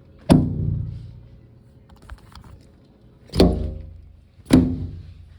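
Four heavy thuds, each followed by a short resonant ring that fades over about a second.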